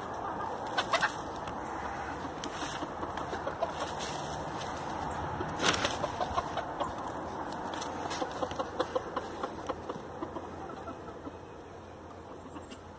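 Small flock of chickens clucking softly while pecking and tearing at a pile of fresh-cut grass. Quick beak ticks come thick and fast through the second half, and a couple of sharper knocks land about a second and six seconds in.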